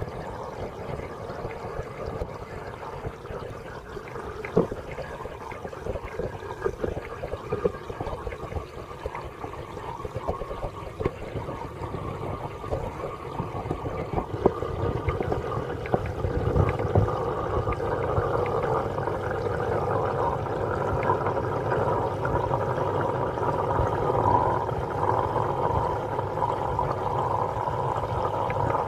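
Water running and bubbling in an aquarium tank, a steady noisy wash that grows louder about halfway through, with a few small clicks.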